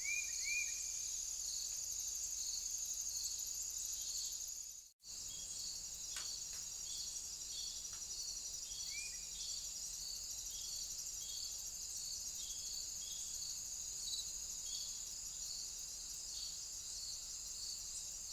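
Crickets or bush-crickets trilling steadily in a dense high chorus, with a second insect's regular chirps about once a second beneath it. A few short high calls come near the start and again about 9 seconds in, and the sound drops out briefly about 5 seconds in, where the recording cuts.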